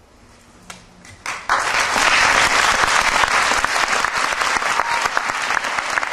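Audience applause: a few scattered claps, then the whole audience breaks into full clapping about a second and a half in.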